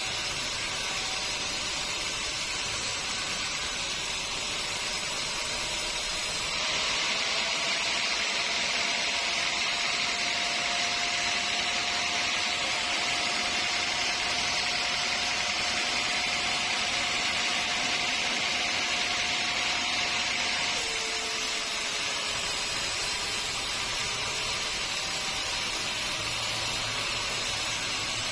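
Sawmill saw running through a teak log: a steady hiss of machinery, with a held whine from about a quarter of the way in that drops in pitch and ends about two-thirds of the way through as the cut finishes.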